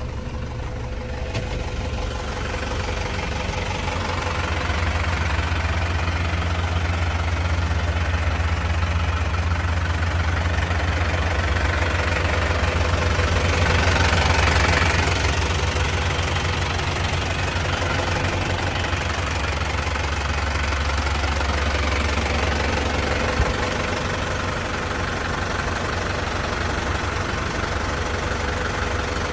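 Isuzu Elf dump truck's 3.7 L diesel engine idling with the hydraulic dump hoist engaged, raising the dump bed. A low drone under the engine builds for about twelve seconds, then fades and cuts off sharply about 23 seconds in, as the bed reaches the top of its lift.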